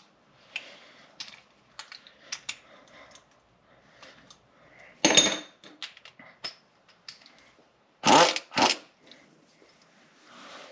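Scattered clinks and knocks of tools and metal hardware being handled under a truck, with two louder short bursts about five and eight seconds in.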